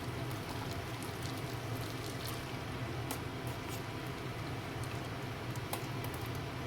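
Food cooking in a pan: steady sizzling and bubbling with scattered sharp pops, over a low steady hum.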